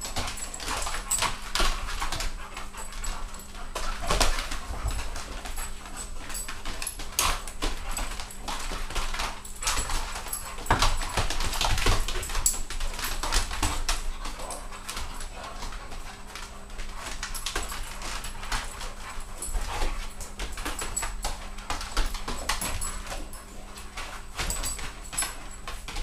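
Two dogs play-fighting on a linoleum kitchen floor: claws clicking and scrabbling on the linoleum in many quick irregular scrapes, with dog vocal sounds now and then.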